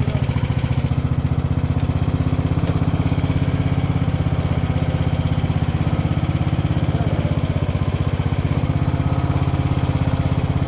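Craftsman riding lawn mower's gasoline engine running steadily, freshly started.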